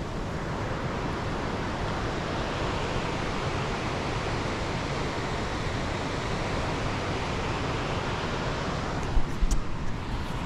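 Wind buffeting the camera microphone: a steady rushing noise with a heavy, fluctuating low rumble. About nine seconds in, a few sharp knocks come through, typical of the camera being handled.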